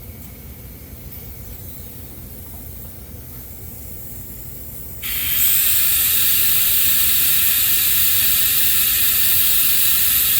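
Compressed air hissing, switching on suddenly about halfway through and then running steady and loud: an air-powered vacuum tool sucking dirty brake fluid out of the master cylinder reservoir.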